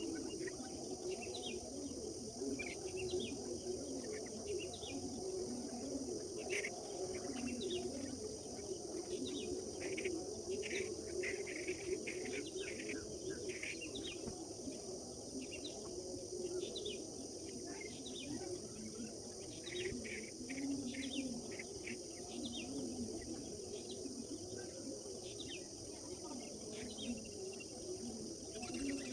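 Birds chirping in many short, scattered calls over a steady high-pitched insect trill, with a low continuous murmur underneath.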